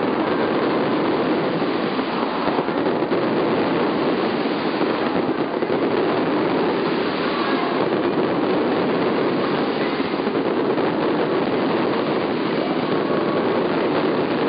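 Fireworks barrage: many small crackling bursts so close together that they merge into a steady, dense rattle with no single bang standing out.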